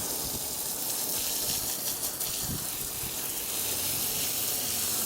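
Water spraying steadily from a hose onto a soaked car carpet, a continuous hiss.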